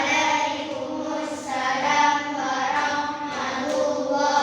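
Children singing together, holding long notes.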